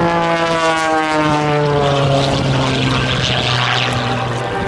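Oracle Challenger III aerobatic biplane's propeller engine running hard, its pitch falling steadily over about four seconds.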